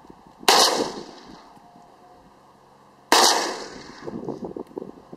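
Two shots from an SKS rifle in 7.62×39 mm, about two and a half seconds apart, each with a long fading tail; the second is the louder.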